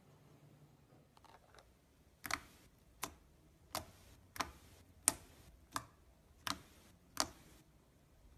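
Slime being worked by hand, making sharp clicking pops at an even pace, about one every three quarters of a second, eight in all, starting about two seconds in.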